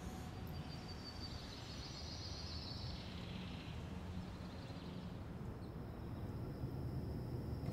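Faint outdoor street ambience: a steady low rumble, with a faint high hiss that fades out about three seconds in and a thin steady high tone from about five seconds in.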